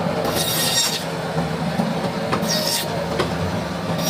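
Band saw running steadily while its blade cuts through a whole rohu fish. The blade gives a high-pitched screech twice as it bites through the fish, a longer one just after the start and a shorter one about two and a half seconds in.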